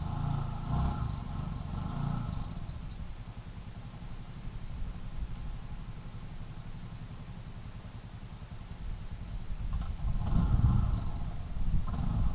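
ATV engine running at low speed under load while the quad crawls across a soft, sloping bank carrying a canoe, with the throttle opened up during the first two seconds and again from about nine to twelve seconds in.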